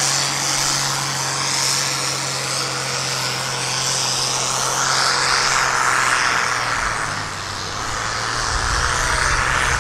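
Loud engine noise: a steady low engine note under a broad rushing roar that swells and sweeps up and down in pitch, with a deeper rumble building near the end.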